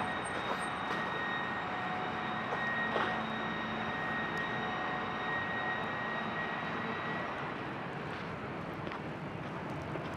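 Electric tram passing, its drive giving a steady whine over a steady street hiss; the whine fades out about three quarters of the way through.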